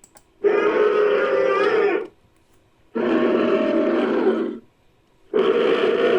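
Made-up creature calls for a Dinopithecus, an extinct giant baboon, built from primate and monster sound clips: three loud, drawn-out calls, each about a second and a half long with short silences between, the third running on past the end.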